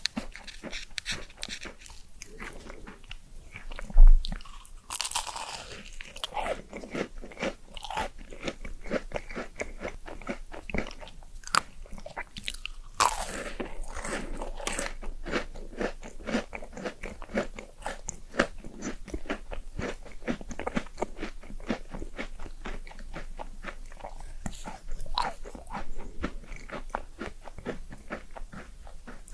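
Close-miked eating: crunchy bites and chewing with many small mouth clicks, going on throughout. A sharp loud thump about four seconds in.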